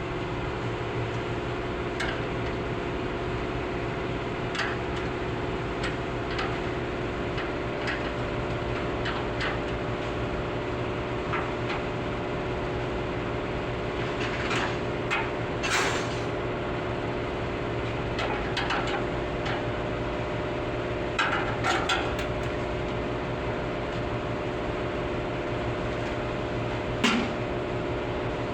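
Steady machine hum with several held tones, with scattered sharp knocks and clicks of tools working on metal; the loudest knock comes near the end.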